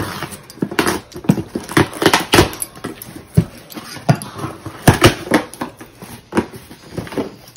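A cardboard shipping box and its packaging being opened and handled: irregular crinkling, scraping and sharp knocks of cardboard and plastic.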